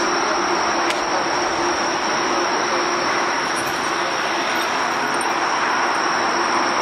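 Steady jet engine noise from a four-engine airliner: an even rush with a constant high-pitched turbine whine on top.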